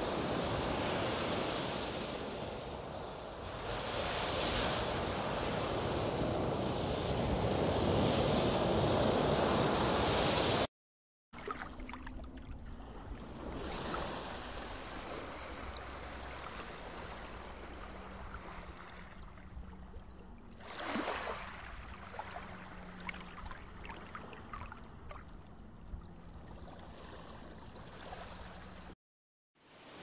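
Ocean surf and wind: a loud rushing wash that rises and falls, breaks off about eleven seconds in, then comes back as a quieter, even wash of waves with one swell near the twenty-second mark.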